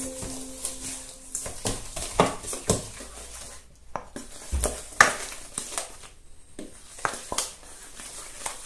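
Wooden spoon beating a cream cheese, sugar and butter mixture in a stainless steel mixing bowl, knocking and scraping against the metal sides at an uneven pace. The loudest knock comes about five seconds in.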